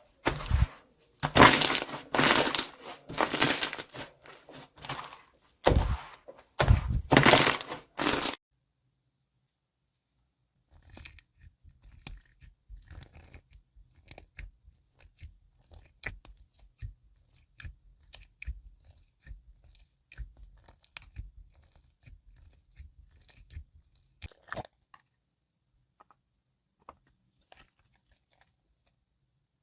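Slime being squeezed and pressed by hand, making loud crunching, crackling sounds for about the first eight seconds. After a brief gap come faint scattered crackles and soft taps, which die away a few seconds before the end.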